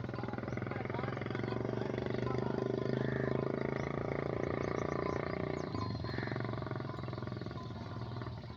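Sheep bleating in a long, low, wavering call that stops about six seconds in, over the clinking of sheep bells.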